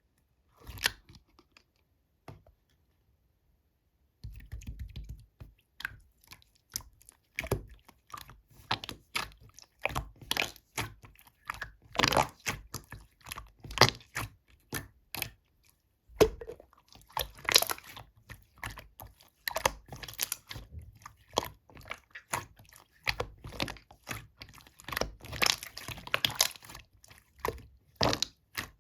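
Slime being squished and kneaded by hand, giving irregular sticky clicks, pops and short crackling bursts that come several times a second. It starts about four seconds in, after a single click near the first second.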